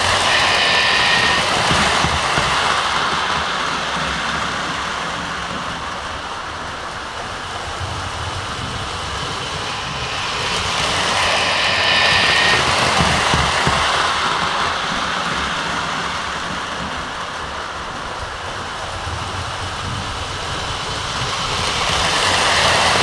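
O-gauge model train of Lionel 0-6-0 switcher locomotives and an MTH rotary snowplow running around a floor track loop, its rolling and motor noise swelling each time it passes close, about every eleven seconds. A short whistle tone sounds twice, once near the start and once about halfway through, as the train goes by.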